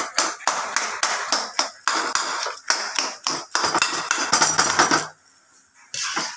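Rapid, irregular clattering and knocking of kitchen utensils against cookware. It stops about five seconds in, and one more short clatter follows near the end.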